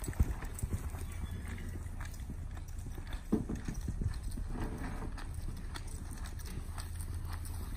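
A horse's hooves thudding on soft sand footing as it canters around a round pen, in an uneven run of hoofbeats. The loudest thud comes just after the start as the horse passes close by.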